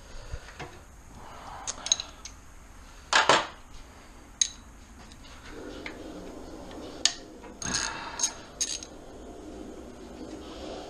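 Metal hand tools clinking and clanking against metal under the car's hood: a scattering of sharp, ringing clinks, the loudest about three seconds in and a quick cluster of them near the end.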